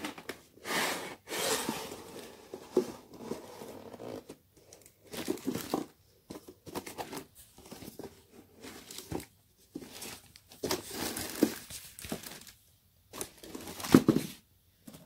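Cardboard drill box and its packaging being handled: irregular bursts of rustling, crinkling and scraping as it is opened and tipped, with a louder bump near the end.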